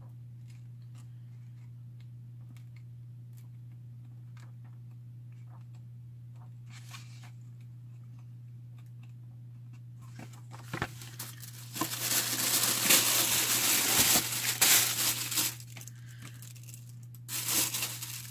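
Paper being handled: faint rustles and ticks for about ten seconds, then loud crinkling and tearing of paper packaging for about seven seconds, with another short burst near the end. A steady low electrical hum runs underneath.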